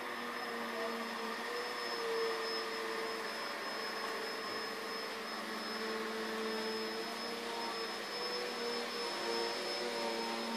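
Steady whirring hum, like a small motor or fan running, with faint tones that waver slightly in pitch and a thin high whine.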